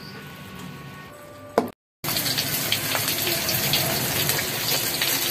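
Chicken pieces deep-frying in a wok of hot oil: a loud, steady sizzle full of small crackles, starting about two seconds in. Before it, a quieter stretch of stir-frying water spinach in a wok, ending in a sharp clack and a brief silence.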